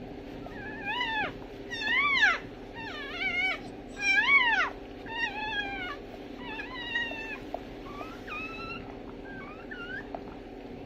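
A newborn puppy crying in a string of high squeals, each rising then falling in pitch. The squeals are loudest in the first half and grow fainter and shorter toward the end.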